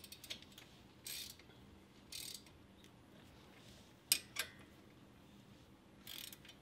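Ratchet wrench clicking in short runs, three times, as the front brake caliper bolts are run in, with two sharp clicks about four seconds in.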